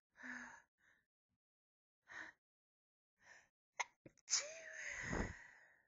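A person's sneeze build-up: a few short, catching breaths, then a loud full sneeze about four seconds in that trails off.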